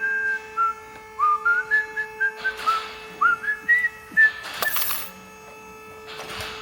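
A person whistling a tune: a run of short notes, each sliding up at its start and climbing mostly upward in steps. A couple of brief scraping rustles come around the middle, the loudest just before five seconds in.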